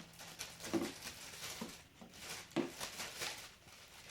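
A spoon stirring sticky glue-and-detergent slime in a cup: faint, irregular squishes and scrapes as the mixture is worked and begins to turn smooth.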